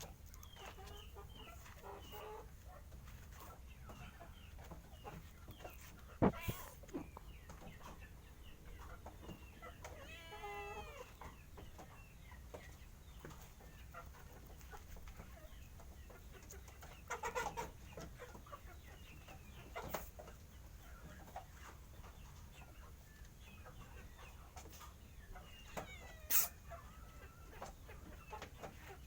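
Stray cats meowing while they are being fed, among many short chirping animal calls, with a long drawn-out meow about ten seconds in. There are two sharp knocks, one about six seconds in and one near the end.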